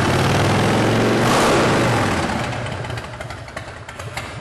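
Harley-Davidson V-twin engine on a custom motorcycle running loud with the throttle opened, then dropping back and dying away over the last couple of seconds.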